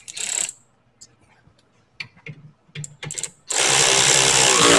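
A few light clicks and knocks, then near the end a cordless power ratchet runs steadily for about a second and a half, spinning the tie rod nuts on.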